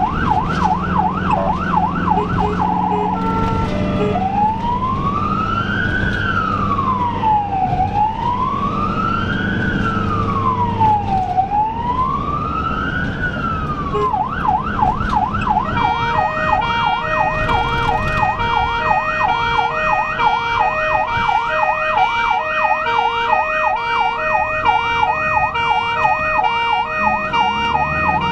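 Ambulance electronic siren heard from inside the cab over engine and road noise. It starts on a fast yelp, switches after a few seconds to a slow wail of about three long rising and falling sweeps, then goes back to the fast yelp. About halfway through, a second, stepped pulsing siren tone sounds over it.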